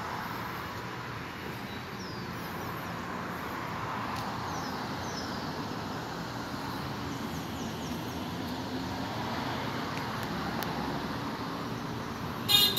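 Steady traffic noise from a nearby road, with a few faint short high chirps. Near the end a car horn honks several times in quick succession, the loudest sound here.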